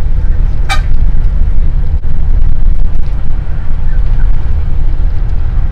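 Moving bus heard from inside: a loud, unsteady low rumble of engine and road noise. There is a brief high-pitched squeak about a second in.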